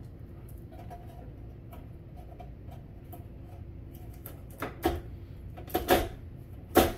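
Hands handling an indoor electric grill's metal heating element and its cardboard and tape packing: faint light clicks, then a few sharp knocks and clatters in the last two and a half seconds.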